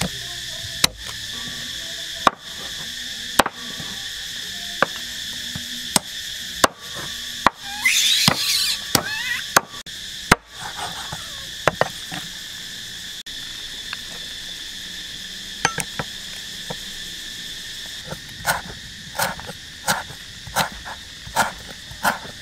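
Steady high drone of an insect chorus with scattered sharp knocks. Near the end, a knife chopping lemongrass on a wooden cutting board, about one and a half strokes a second.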